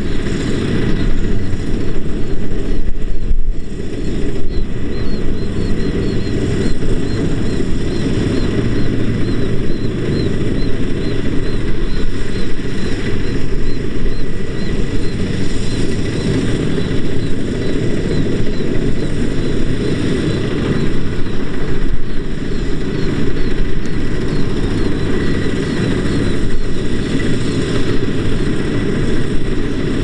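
Kubota DC-70 Plus rice combine harvester working: its diesel engine and threshing machinery running steadily under load as it cuts rice.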